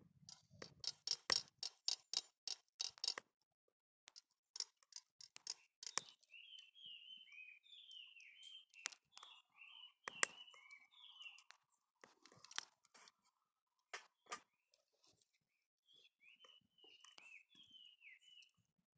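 A wood campfire crackling, with a quick run of sharp pops and clicks in the first few seconds and then scattered single pops. From about six seconds in, a bird chirps in a string of short high calls.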